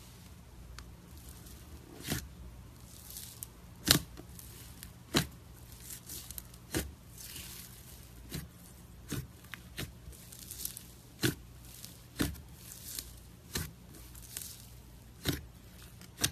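Fingers pressing and poking into a tub of glitter slime, making sharp wet pops and clicks about once a second, starting about two seconds in, with softer squishing between them.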